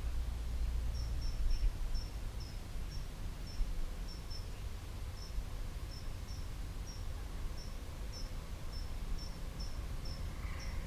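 A steady series of short, high chirps, about two a second, over a low outdoor rumble of wind on the microphone.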